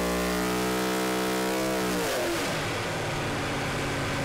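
V8 Supercar V8 race engine on a dynamometer, held at high revs with its pitch creeping up. About two seconds in the revs drop sharply and it settles to running at low revs, around 2,500 rpm.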